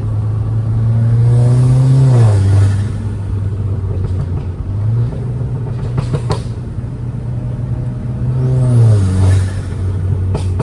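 Audi A4's turbocharged engine pulling under acceleration, then dropping in pitch as the throttle closes, with a hissing turbo flutter on each lift-off: twice, about two seconds in and again near nine seconds.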